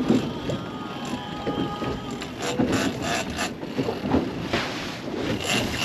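Big-game fishing reel being cranked against a heavy fish, its gears clicking in uneven spurts, with wind on the microphone.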